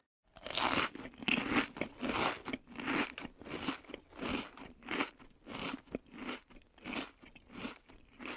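Homemade Topre switch tester, its keycap pressed over and over on the rubber dome with its spring fitted: a steady series of short presses and releases, roughly one to two a second.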